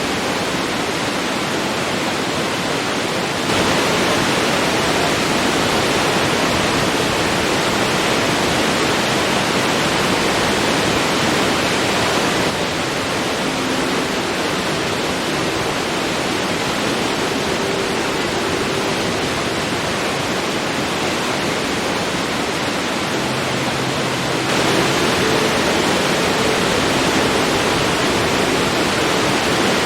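Forest waterfall: a steady, dense rush of falling water. Its loudness steps up slightly a few seconds in, drops back about midway, and rises again near the end.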